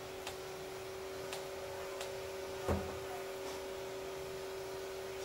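Scissors snipping chicken intestine into small pieces over a wire strainer: a few sharp snips spread out, the loudest, with a dull knock, just past the middle, over a steady low hum.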